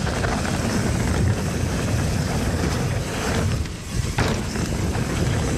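Steel hardtail mountain bike riding down a trail: steady wind rush on the action camera's microphone over tyre and chain rattle. About three and a half seconds in it goes briefly quieter as the bike pops into the air, then a knock as it lands.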